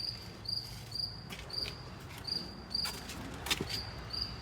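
A cricket chirping steadily: short high chirps at one pitch, about two to three a second, with a few sharp clicks among them.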